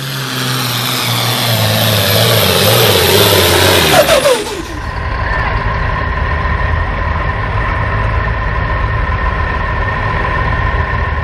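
Farm stock tractor's diesel engine at full throttle under load pulling the sled, then the throttle is cut about four seconds in and the engine note falls away. It runs on at low revs with a steady high whine.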